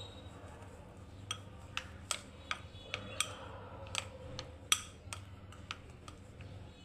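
A run of light, uneven clicks and taps, about a dozen over four seconds, the loudest near the end, over a faint steady low hum: kitchen utensils knocking against dishware.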